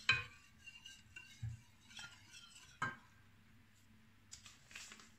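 A stirring utensil clinking and knocking against a cooking pot while pudding mixture is stirred: a few sharp clinks with a short metallic ring, the first the loudest.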